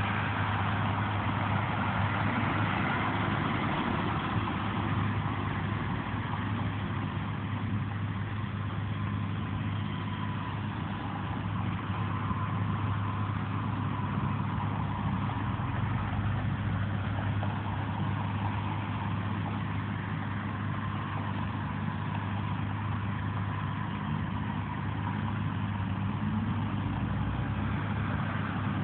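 Truck traffic: a steady low engine hum with no sudden events.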